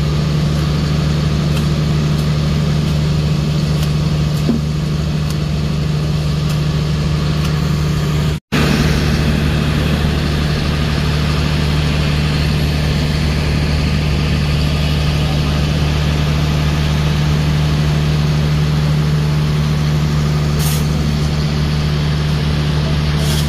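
Heavy diesel engine idling, a steady low drone that holds an even pitch and drops out for an instant about eight seconds in.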